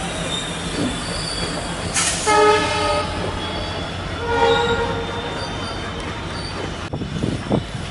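Train horn sounding two short blasts, about two and about four and a half seconds in, over the steady rumble of a passenger train running on the rails.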